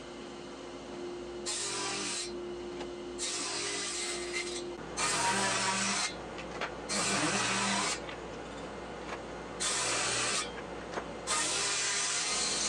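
Table saw with a thin circular-saw blade ripping thin layers off a white oak board: six bursts of cutting noise, each about a second long, with the saw's hum between them.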